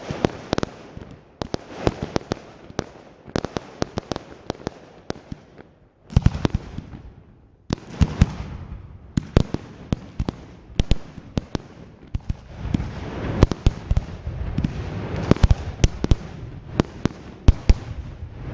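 Professional fireworks display: many sharp bangs of shells firing and bursting, one after another, over a steady hiss. The sound cuts out briefly twice in the middle, and the bangs come thicker in the last third.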